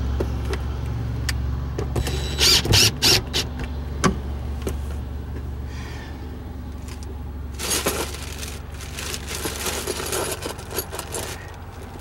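Clinks, rattles and sharp clicks of metal hardware and tools being handled while a seat is fitted to a truck's cab floor. They come in a cluster a couple of seconds in and again around eight seconds, with lighter taps after. Under them, a steady low vehicle rumble slowly fades.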